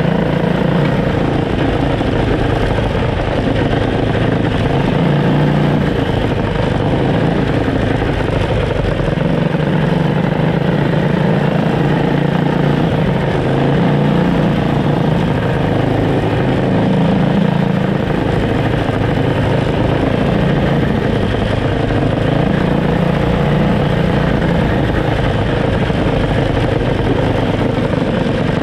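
Two Tillotson small engines of a home-built go-kart running under throttle, their note rising and falling a little as the kart drives along a gravel trail, with tyre and gravel noise.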